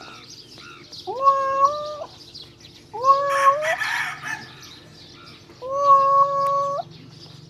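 A cat meowing three times, each meow about a second long, rising at the start and then held on a level pitch. A brief noisy scuffling sound overlaps the second meow.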